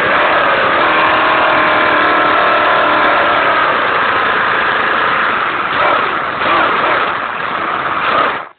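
Traxxas Slash RC short-course truck's drivetrain running hard with a steady mechanical whine while its chained wheels spin, stuck. The truck sounds like a full-size short-course truck. The pitch wavers a few times before the sound cuts off suddenly near the end.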